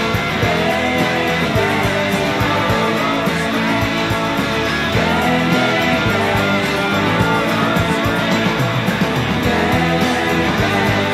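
Guitar-led rock band playing: electric guitars over bass and a steady drum beat, from an early-1990s demo recording.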